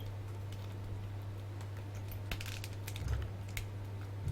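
A few faint clicks and taps of plastic action-figure parts being handled, the torso piece that keeps coming apart, over a steady low electrical hum.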